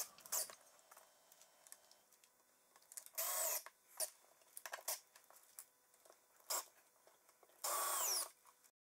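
Cordless drill-driver driving self-tapping screws through furniture corner brackets into wood, in two short whirs, one about three seconds in and one near the end. Small clicks and knocks come between them.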